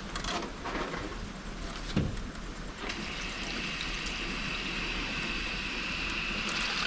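Water running from a newly installed tap opened for a test, a steady hiss that sets in about three seconds in. A dull knock comes about two seconds in.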